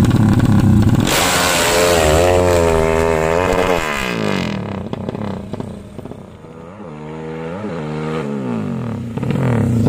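Motorcycle engine revving. The pitch wavers up and down for a few seconds and then fades, followed by two quick throttle blips and a rise in engine sound near the end.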